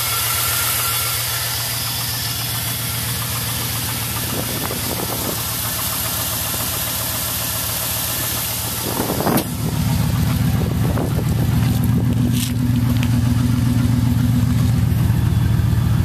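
2000 Chevy Silverado engine idling through Pacesetter shorty headers and a Flowmaster 40 Series muffler, with the exhaust dumped ahead of the rear axle: a steady, fast-pulsing low exhaust note. About halfway in there is a brief noise, and after it the exhaust sounds louder and deeper.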